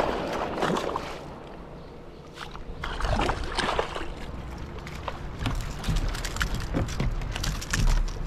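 Water splashing and sloshing around a plastic kayak, with scattered short knocks and clicks and a low wind rumble on the microphone.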